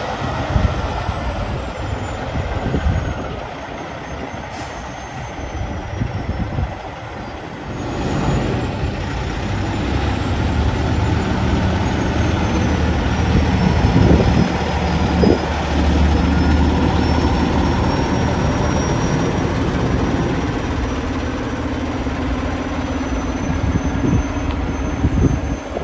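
Heavy truck's diesel engine running close by, its low engine note growing louder about a third of the way in.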